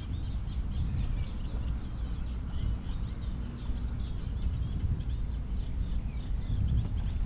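Many small birds chirping in the reeds, in short high calls throughout, over a steady low rumble of wind and water on the microphone.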